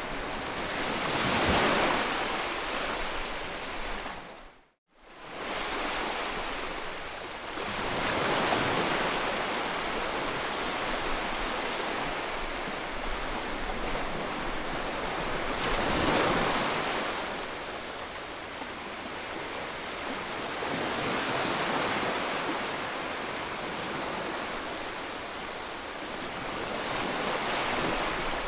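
Floodwater rushing, a dense noise that surges louder and softer every few seconds, broken by a brief gap about five seconds in.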